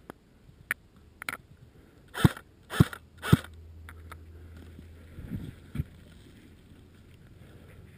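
Airsoft AK rifle fired three single shots close to the microphone, about half a second apart, each a sharp crack with a low thump. Lighter clicks and knocks of handling come before and after them.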